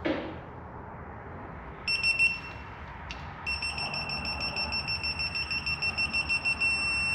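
Digital torque-angle wrench beeping while a bolt is turned through its 180-degree angle: a few beeps about two seconds in, then from halfway beeps that come faster and faster as the target angle nears, merging into a steady tone near the end as the angle is reached. A short knock at the very start.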